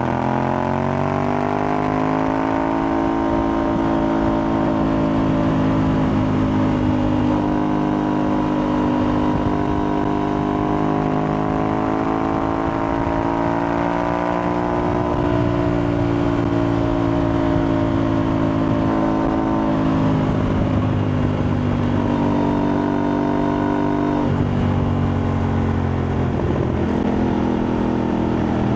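Aprilia Tuareg 660's parallel-twin engine with an Akrapovic replica exhaust, running under way. Its pitch climbs over the first few seconds, holds, rises slowly again to about the middle, then eases off, with sudden changes in the note about two-thirds of the way through and again a few seconds later.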